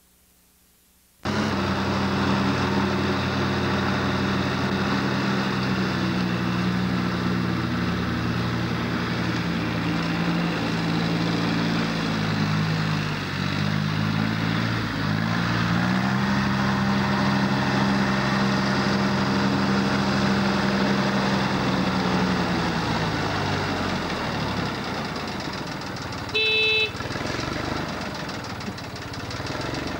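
International compact tractor's engine running steadily, cutting in suddenly about a second in. Its pitch dips and recovers in the middle and falls away near the end as the engine slows, with a brief high tone shortly after.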